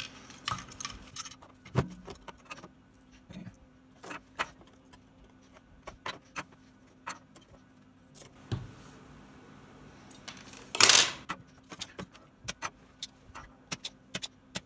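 Scattered small clicks, taps and light rattles as a wah pedal's circuit board and its wires are handled against the pedal enclosure and the desk, with one louder brief scrape about eleven seconds in.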